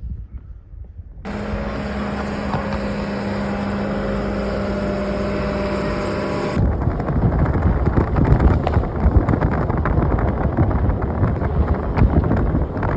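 Wind roar with a steady mechanical hum and a constant low tone, which cuts abruptly about six and a half seconds in to heavy, gusty blizzard wind buffeting the microphone.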